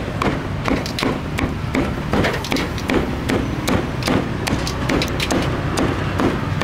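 Meat cleaver chopping grilled pork on a thick round wooden chopping block, quick even knocks about three a second.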